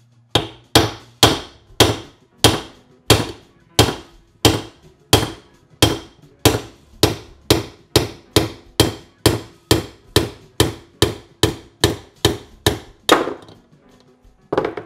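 Hammer blows on a bearing driver, driving a bearing out of a heated aluminum Triumph 650 crankcase half. The sharp strikes come at about two a second, speed up slightly, stop about a second and a half before the end, then two more come near the end.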